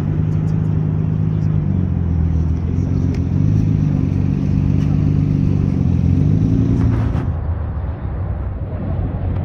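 Engine and exhaust of a widebody Mitsubishi Lancer Evolution wagon as it rolls slowly past, a low steady drone whose pitch dips and rises slightly. It stops suddenly about seven seconds in.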